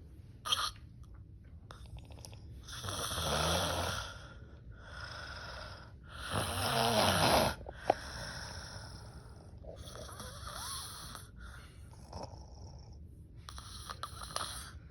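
A sleeping woman snoring loudly, a rasping snore on each breath with quieter breaths between, the loudest snores about three and six seconds in. A brief sharp click about half a second in.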